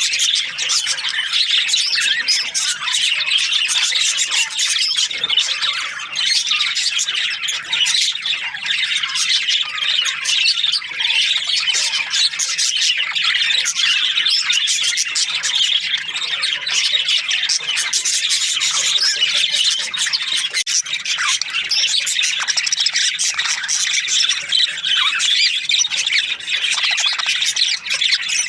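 Budgerigars chattering and chirping without pause, many high calls overlapping at a steady level.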